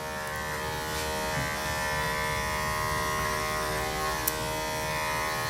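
Small electric dog-grooming trimmer running with a steady buzz, with a single sharp click about four seconds in.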